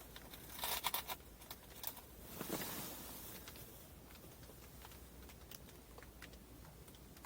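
Faint rustling and a few small clicks and ticks from hands handling bait and a small ice-fishing jig. The clicks are bunched in the first second, with a soft rustle a little later.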